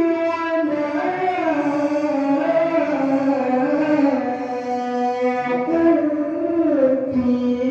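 A male qari reciting the Quran in a melodic, high-pitched style, drawing out long ornamented notes whose pitch waves and slides. There is a short break about two-thirds of the way through.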